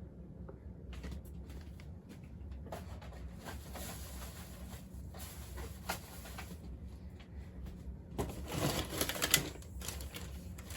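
Packaged diecast cars being handled: scattered light clicks and rustles of plastic and card, with a louder stretch of rustling about eight seconds in, over a low steady hum.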